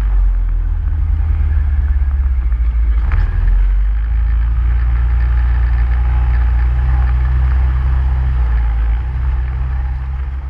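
Motor vehicle engine running steadily with a deep low rumble, with a single sharp knock about three seconds in. It fades near the end.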